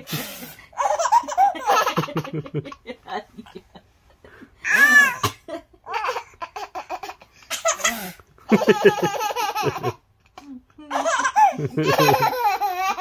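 Baby laughing in repeated high-pitched bouts with short pauses between.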